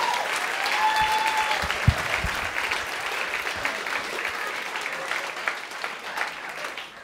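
Comedy club audience applauding, with a voice calling out about a second in; the clapping dies down near the end.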